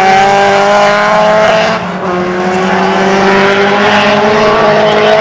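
Small hatchback race cars' engines at high revs through a corner. The pitch climbs steadily, dips along with the loudness about two seconds in, then climbs again.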